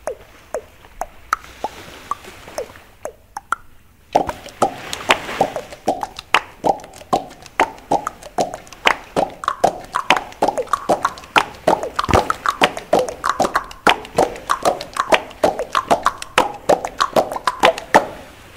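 Percussion music: a few sparse, sharp pitched pops, then from about four seconds in a fast, steady beat of pitched drum-like hits.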